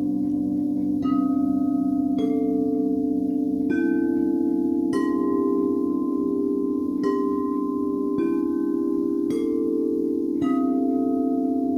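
Singing bowls ringing: about eight strikes, each at a different pitch and ringing on, over a steady, slowly wavering low hum.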